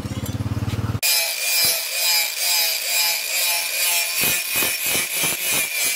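Angle grinder with an abrasive disc grinding a hand-forged steel knife blade made from a tractor disc, a steady high whine over a harsh grinding hiss that swells and eases as the disc is worked along the blade. Before it starts, about a second of a low, fast-pulsing hum.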